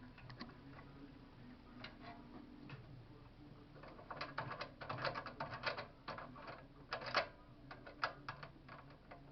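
Scattered clicks and rattles of metal parts being handled on a JET scroll saw as a part is taken off it; the clicks come thicker and louder about four seconds in.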